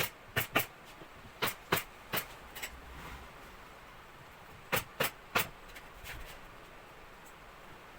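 Upholstery staple gun firing into a sofa frame: about ten sharp shots in three quick runs, the last three coming after a pause of about two seconds.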